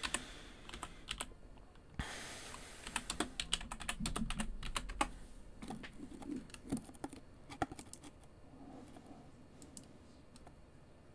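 A string of light clicks and taps, with a short rustling hiss about two seconds in, fading off toward the end.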